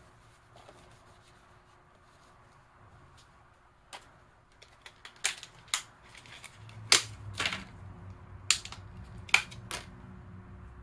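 Sharp clicks and taps of small hard parts and tools being handled inside an opened tablet computer, about a dozen irregular strikes that start about four seconds in.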